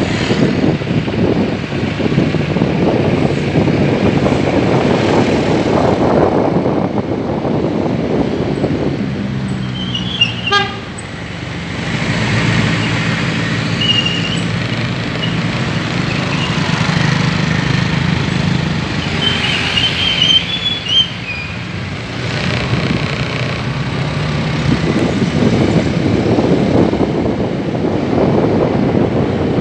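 Road traffic with vehicle engines running and a horn tooting a few times.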